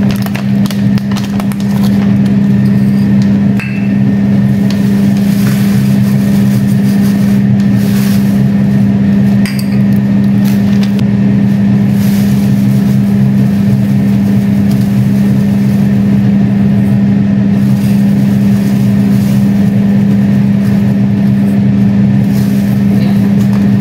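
Steady low motor hum, with a few faint clicks and taps over it.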